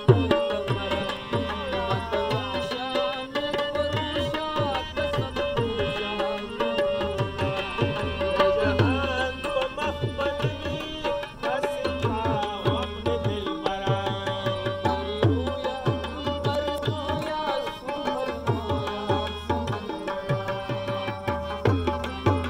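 Live Pashto folk music: harmonium, rubab and tabla playing together, with the tabla's low strokes keeping a steady beat under the gliding melody.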